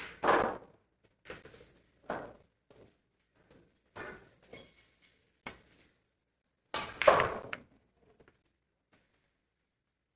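Pool balls knocking during play: a string of separate sharp knocks, the loudest near the start and about seven seconds in.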